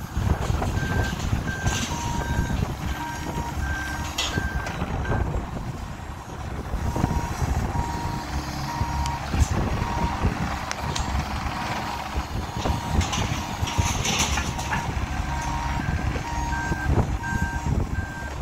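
Bobcat E26 mini excavator's diesel engine running as the machine tracks and swings, with a travel alarm beeping about twice a second. A second, higher-pitched beeping alarm runs alongside it early and again near the end.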